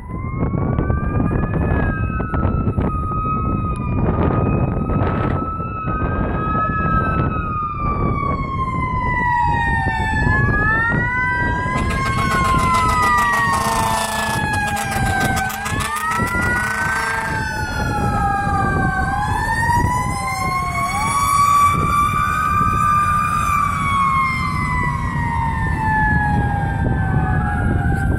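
Fire engine responding with its sirens going: electronic sirens wailing up and down, a Federal Q mechanical siren winding up in rising whines, and air horn blasts for several seconds around the middle, over a low engine and traffic rumble.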